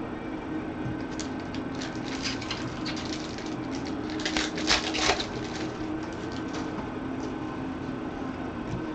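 Crinkling and crackling of a trading-card pack wrapper being handled and opened, with cards rustling. The crackling comes in irregular bursts and is loudest about four to five seconds in.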